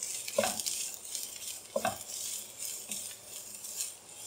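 Shredded cabbage, carrot and capsicum sizzling in hot oil in a wok while a wooden spatula stirs them. There is a light frying hiss throughout, and the spatula makes scraping strokes across the pan, two of them louder, about half a second and two seconds in.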